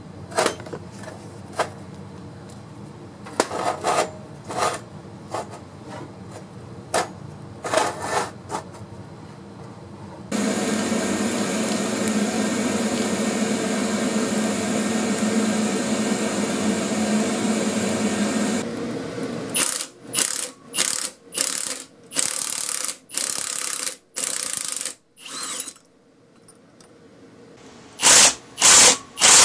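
Light metal clinks, then a MIG welder's arc hissing steadily for about eight seconds as a tack weld is laid on a wheel bearing race. A string of short bursts follows, and near the end a Milwaukee M18 Fuel cordless impact wrench hammers in loud bursts, driving a two-jaw puller's screw to pull the race off the hub.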